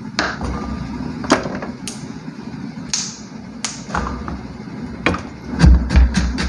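Kitchen clatter: a few separate clinks and knocks of metal bowls and utensils being set down, then, about a second before the end, a cleaver chopping a carrot on a plastic cutting board in quick, even strokes, about five a second.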